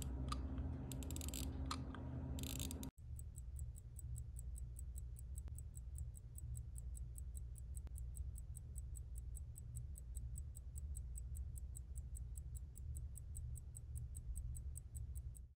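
A mechanical pocket watch ticking evenly, about five ticks a second, over a low steady hum. Before that, in the first three seconds, come irregular small clicks and rasps of the watch's winding crown being turned, ending in a sudden cut.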